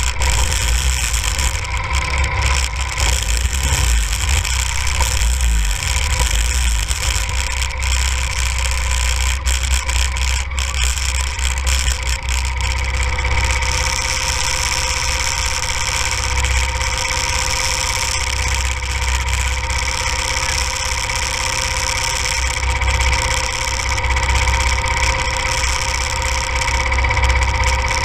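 Go-kart's small engine idling steadily, with a low rumble and a constant hum.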